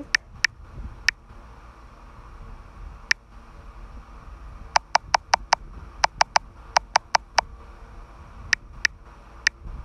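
iPhone on-screen keyboard key clicks as an address is typed and corrected. Single clicks are spaced apart at first, followed by quick runs of several clicks in a row past the middle, then a few more single clicks near the end.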